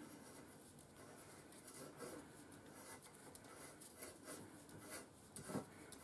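Hand tap cutting a thread into a thin steel channel, turned by a tap wrench: faint, intermittent scraping strokes, with a sharper click near the end.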